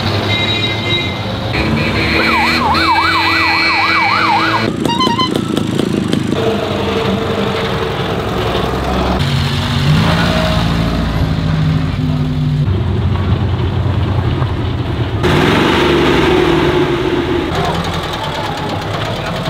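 Vintage cars and trucks running past, in short clips that change abruptly every few seconds; a couple of seconds in, a siren wails rapidly up and down for about three seconds.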